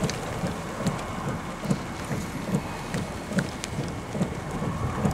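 Steady rain during a tornadic thunderstorm, with scattered raindrops ticking sharply and low thumps about once a second.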